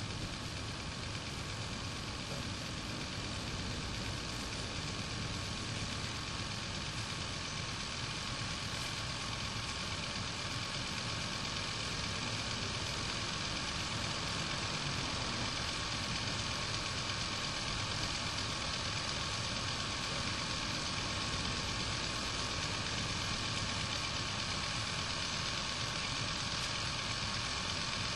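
A steady machine-like drone with a hiss across all pitches, no breaks or strokes, getting slightly louder about halfway through.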